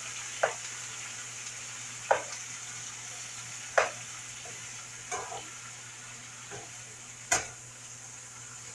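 Salmon fillets sizzling steadily in oil in a frying pan, while a slotted spatula stirs vegetables in a second pan, knocking against it every second or two.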